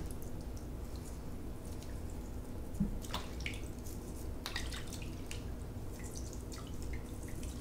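Water dripping into a sink of soapy water from a trumpet valve cap being scrubbed out with a small brush; a few scattered drips over a low steady background.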